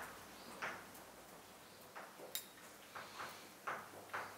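Chalk writing on a blackboard: a run of short scratches and taps, faint and spaced out, coming closer together near the end.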